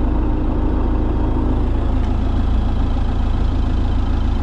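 Motorhome's automatic levelling jacks running, a steady low hum as they lift the vehicle, with a higher tone that fades out about one and a half seconds in.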